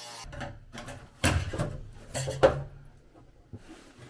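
A few separate knocks and clatters of tools and metal being handled, the loudest about two and a half seconds in, over a faint low hum.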